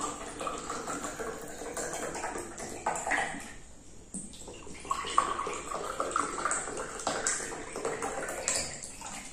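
Water poured from a plastic jar into two glass tumblers, one after the other, with a short break about four seconds in as the pour moves to the second glass. The pitch of the pouring rises as each glass fills.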